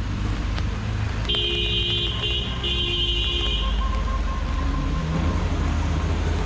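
Busy street traffic with vehicle engines running, and a vehicle horn honking three times in a row about a second in: a long blast, a short one, then another long one.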